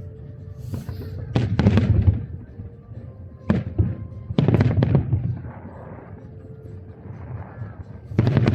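Aerial fireworks shells bursting in clusters of loud booms with rumbling tails and some crackle, with quieter gaps between volleys and a fresh volley near the end.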